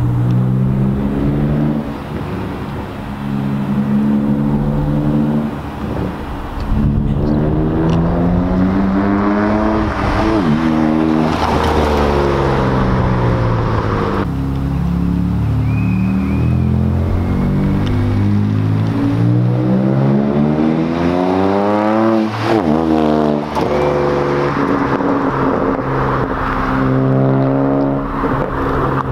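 BMW 335i's twin-turbo inline-six, with mufflers and resonators deleted, accelerating hard along the road in two separate runs. The exhaust note climbs in pitch as it pulls, and each run ends with a quick drop in pitch as the car passes close by.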